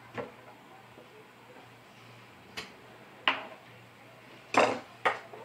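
About five sharp clicks and knocks, the loudest a little after three seconds and again near the end, from brass 12-gauge shotgun shells and tools being handled and set down on a wooden table.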